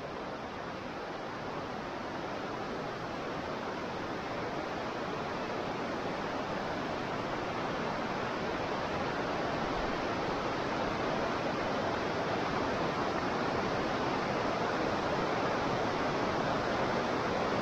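Rushing river water: a steady, even rush that grows gradually louder.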